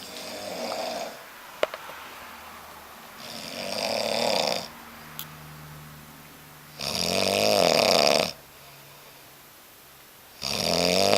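A man snoring in deep sleep: four loud, rattling snores about three and a half seconds apart, with quieter breathing between them. A sharp click comes about a second and a half in.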